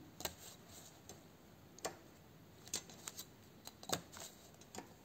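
Faint, scattered clicks and taps of a ruler and pencil being handled while a 3 cm length is measured out and marked: about ten short sharp clicks at uneven intervals.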